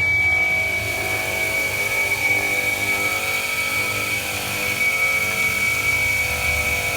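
Fullboar wet tile saw running: the motor and diamond blade make a steady high whine over a hiss.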